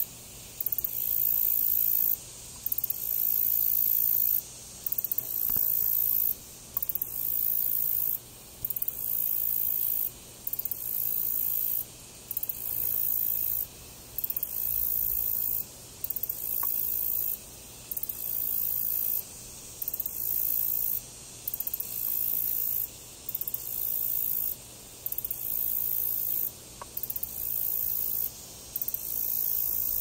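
An insect chorus giving a very high-pitched buzz in regular pulses, about one a second, each pulse lasting nearly the whole second with short gaps between.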